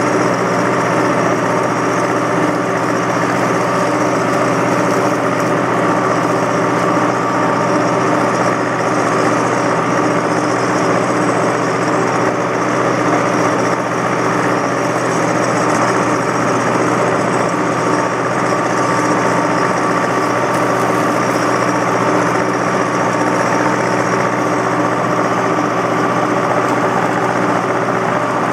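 1985 Belarus 420A tractor's diesel engine running steadily under load, pulling a four-bottom plow through the ground.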